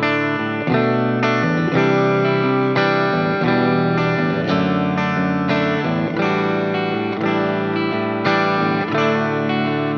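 Sterling by Music Man Cutlass CT30 electric guitar with three single-coil pickups, played as a line of picked notes over a backing track with a steady bass part.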